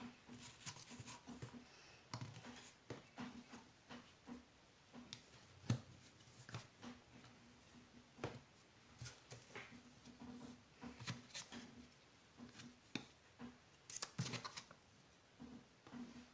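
Jigsaw puzzle pieces being handled: quiet, irregular clicks, taps and scrapes as pieces are picked up, tried against each other and set down on the table.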